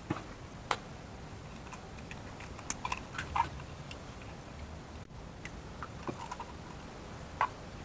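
Light handling noise: a few scattered clicks and taps of a pierced goose eggshell being worked with the fingers as the egg is emptied into the water.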